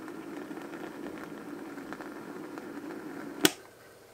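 Perpetuum Ebner Teenager record player playing a record: a steady hissy sound with faint crackles. A sharp click comes about three and a half seconds in, and after it the sound drops away to a low hiss.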